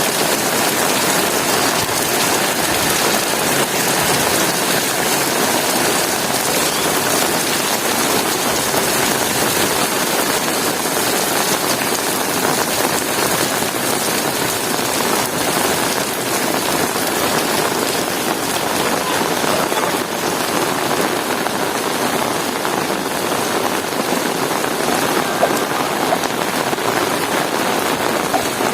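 Heavy rain falling steadily: a dense, even hiss of drops hitting surfaces, with no thunder.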